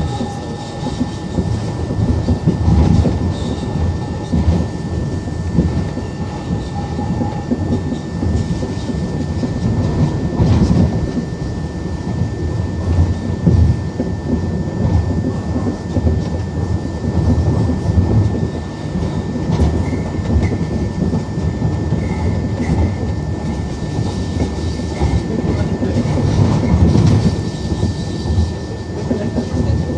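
Wuppertal Schwebebahn suspended monorail car running along its overhead steel track, heard from inside the car: a steady low rumble of the wheels on the rail that swells and fades every few seconds.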